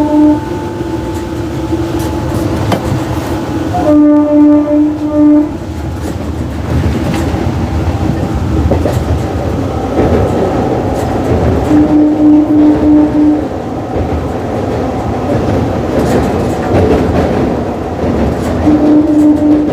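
Horn of the Delhi–Saharanpur Superfast Express MEMU sounding in quick runs of four or five short, low toots every few seconds. Under it runs the steady rumble and clickety-clack of the train moving.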